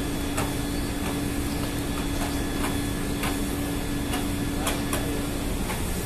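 Ship's machinery running steadily: a constant low hum with a held tone, dotted with irregular sharp clicks.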